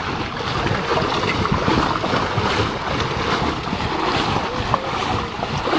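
Continuous splashing and sloshing of muddy pond water as a seine net is handled with fish trapped in it, with wind on the microphone.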